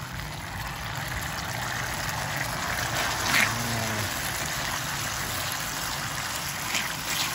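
Sauce simmering in an aluminium wok over a portable gas burner, a steady hiss, while it is cooked down to thicken; a metal ladle scrapes the wok briefly about three seconds in and twice near the end.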